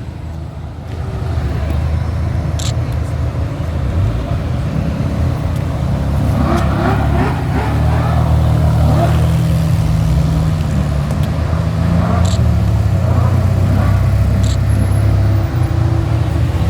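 Ferrari sports-car engines running at low speed in a slow procession, a steady low drone without hard revving.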